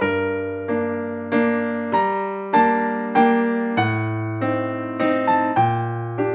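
Background music: a gentle piano or electric piano melody, notes struck about every half second over held bass notes.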